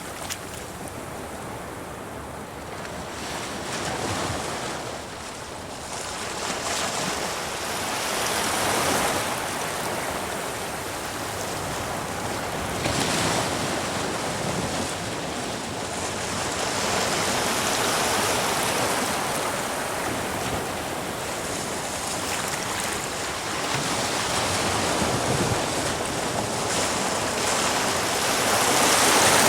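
Sea waves breaking on rocks, a continuous rushing wash that swells and falls every few seconds as each wave surges in, the loudest near the end.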